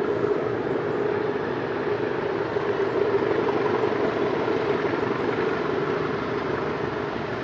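Diesel locomotive approaching round a bend, its engine giving a steady drone that eases slightly near the end.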